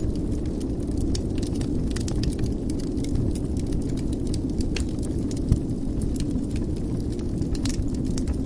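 Wood fire in a fireplace crackling, with frequent small snaps over a steady low rumble of the flames and one louder pop about halfway through.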